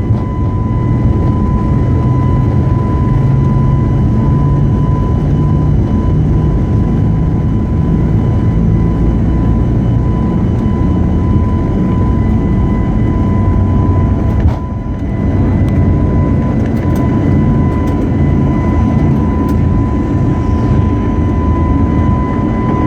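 Cabin noise of an Airbus A320-family jet at takeoff: the jet engines at high thrust give a loud, steady rumble with a steady high-pitched whine over it. About two-thirds of the way in, the noise dips for a moment.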